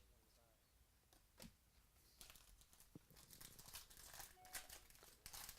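Faint crinkling of a trading card pack wrapper being handled and torn open, with a couple of light clicks; it grows a little louder after about two seconds.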